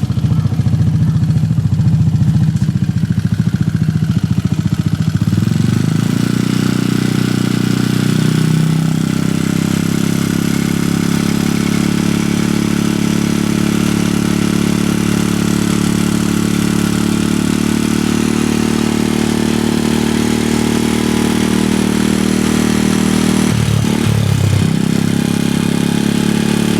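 Honda Foresight scooter's single-cylinder 250 cc four-stroke engine running with a clicking noise at 40,000-plus km, which the owner suspects is tappet noise from excess valve clearance. The engine note shifts about six seconds in and dips briefly near the end.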